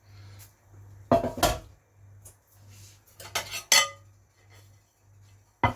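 Metal kitchenware clattering and clinking as the air fryer basket is pulled out and handled: two short bursts of clatter, then one sharp click near the end.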